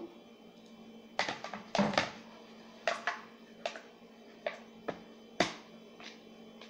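Hands kneading soft, oiled ube bread dough in a plastic bowl: about ten irregular sharp slaps, loudest about two seconds in and again near the end, over a faint steady hum.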